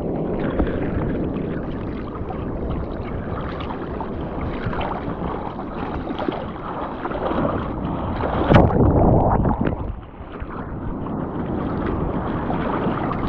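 Water sloshing and splashing close to the microphone, mixed with wind noise, with a louder surge about eight and a half seconds in.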